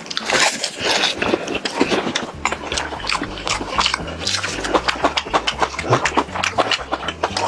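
Close-up crunching and chewing of crispy fried chicken, a dense run of sharp crackles and mouth sounds, over background music with a low bass line coming in after a couple of seconds.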